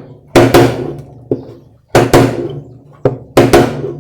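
Hammer blows struck through a drift on the washing machine's basket support, in three quick pairs about a second and a half apart, each strike ringing through the metal and the tub.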